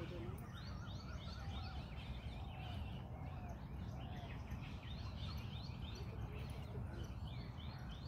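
Many small birds chirping in quick repeated notes over a steady low rumble.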